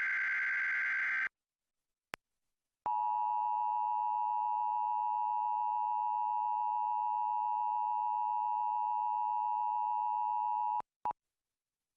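An Emergency Alert System SAME header data burst, a buzzy digital warble, cuts off about a second in. After a click and a short gap, the EAS two-tone attention signal (853 and 960 Hz) sounds steadily for about eight seconds, followed by a brief blip of tone.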